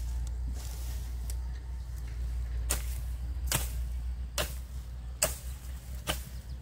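A tool striking a surface over and over, about one chop every second, each one short and sharp, over a low steady rumble.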